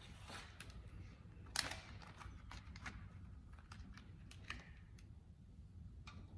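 Faint handling noises of a vinyl decal being shifted into place on a metal tool cart lid: scattered light clicks and crinkles, with one sharper click about a second and a half in.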